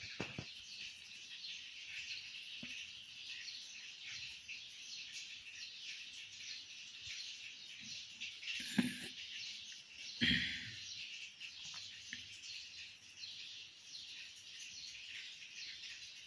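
Birds chirping faintly and continuously in the background, with two brief louder sounds about nine and ten seconds in.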